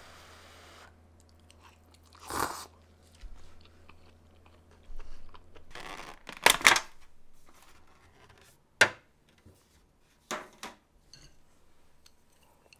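Rigid plastic food packaging being handled and opened, crackling and clacking in several short bursts, the sharpest about nine seconds in.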